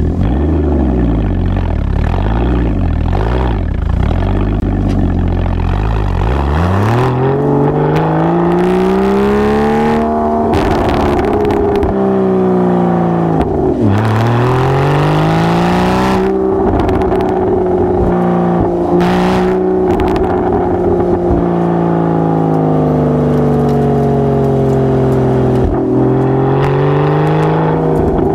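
Exhaust of a Porsche 981 Cayman S's flat-six through a SOUL valved exhaust, heard from a microphone on the rear bumper while driving. A low rumble at first, then the revs climb and drop back sharply at two gear changes, about a third and half-way in, before holding fairly steady with slow rises and falls.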